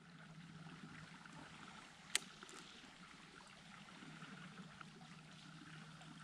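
Faint, steady trickle of water from a culvert draining into the shallows, with one sharp click about two seconds in.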